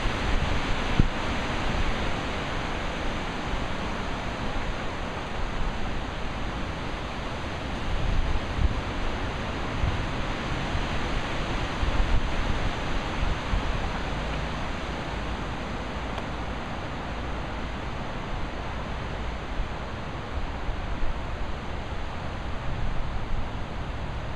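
Steady rushing noise with an uneven low rumble that gusts and fades: wind buffeting the microphone.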